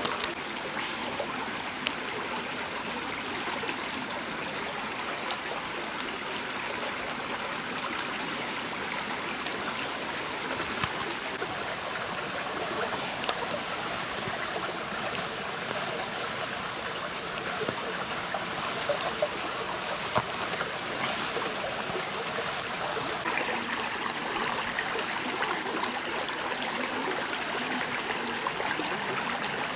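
Stream water running and trickling steadily, with scattered small clicks.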